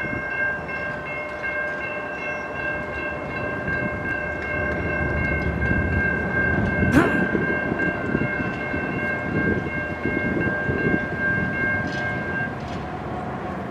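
Freight train's lead diesel locomotive, a CSX CM44AH, sounding its multi-chime air horn in one long blast that cuts off near the end, over the rumble of the diesel engine and the train on the rails. The sound is loudest about halfway through.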